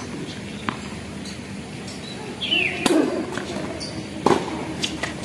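Tennis ball being struck by rackets and bouncing on an outdoor hard court: a series of sharp pops, the loudest about three and four seconds in. Birds chirp faintly in the background.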